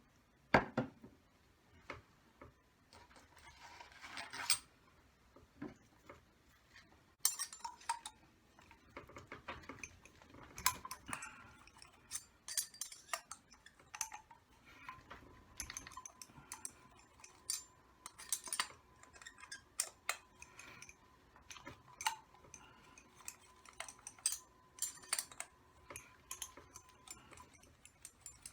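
Small metal parts of a model nitro engine being handled during disassembly: irregular sharp clicks, taps and metallic clinks, some ringing briefly.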